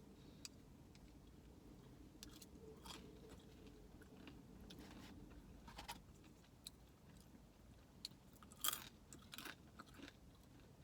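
Faint chewing of a fried crab rangoon (cream cheese wonton), with scattered crisp crunches of the wrapper, the loudest about eight and a half seconds in.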